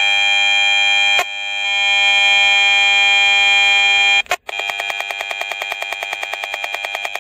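Audio output of a Gigahertz Solutions HF59B RF meter, sounding out the car's WiFi and Bluetooth microwave signal as a loud electronic buzz. It is a steady drone that breaks briefly twice. After the second break it becomes a fast, regular pulsing of about ten beats a second.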